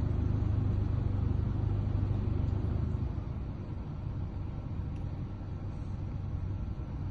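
Vehicle engine idling with a steady low rumble, easing off a little about three seconds in.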